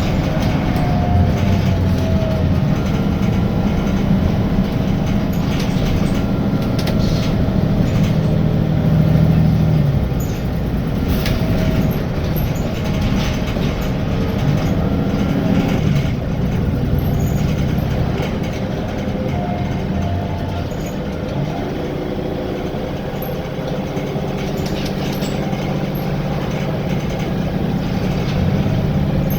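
Wright Gemini 2 double-decker bus on a VDL DB300 chassis heard from inside, its diesel engine pulling up through the revs for about nine seconds, then easing off about ten seconds in and running lower and steadier toward the end.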